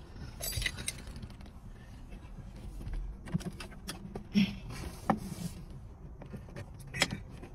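Wiring harness and plastic connectors being handled behind a truck dashboard: scattered light clicks and rustling, with a brief low bump a little past the middle.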